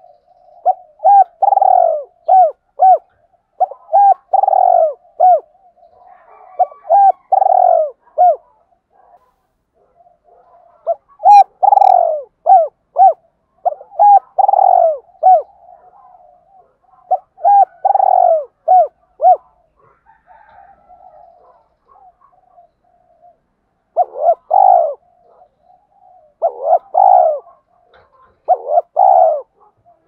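Spotted dove cooing: repeated phrases of several short coos, each ending in a longer, drawn-out coo. The phrases come in bunches with short pauses between them, and softer cooing runs in the gaps.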